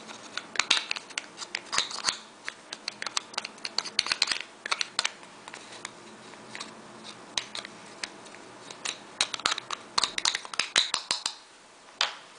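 Fingernails scraping and tapping inside a small clear plastic blush case as crumbled pressed blush powder is worked out onto a plastic lid. The sound is irregular flurries of quick clicks and scratches with short pauses between them.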